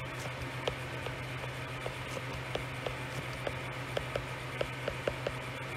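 Steady low electrical hum and hiss with faint, light ticks a few times a second, from a stylus tapping on a tablet while handwriting.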